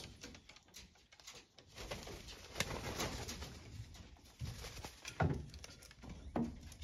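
Sulphur-crested cockatoos calling up close, with two short calls that drop in pitch near the end, among scattered clicks.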